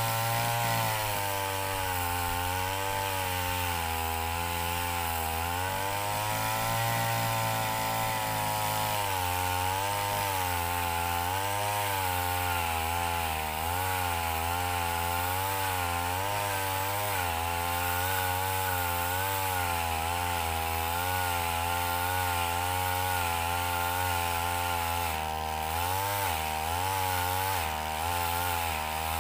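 Backpack brush cutter's engine driving a chainsaw-bar attachment, cutting into a coconut palm trunk. The engine runs under load without a break, its pitch wavering up and down as the chain bites.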